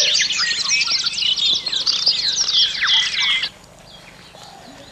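A flock of small birds chattering, many quick overlapping chirps and short sliding notes, that cuts off abruptly about three and a half seconds in, leaving only faint background sound.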